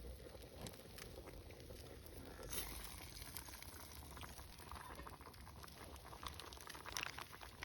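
Faint camp cooking sounds: a pot bubbling and crackling over the heat, with scattered small clicks and rustles.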